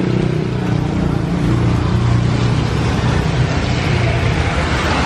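Steady street traffic noise with a low engine rumble.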